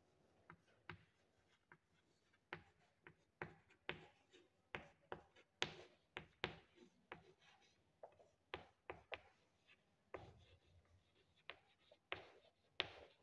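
Chalk writing on a blackboard: a run of short, irregular, faint taps as the letters are written.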